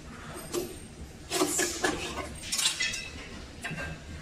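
A large knife chopping through a fish fillet onto a wooden cutting board: about four separate chops, some with a short metallic clink of the blade.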